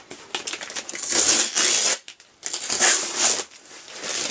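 Packing tape being peeled off a parcel, with the wrapping crinkling: two drawn-out tearing sounds about a second long, a second or so apart, with lighter rustling around them.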